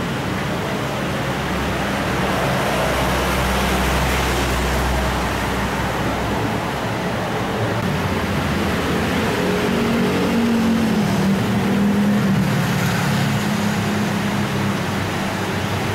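Steady roadside traffic noise, with motorbike engines passing.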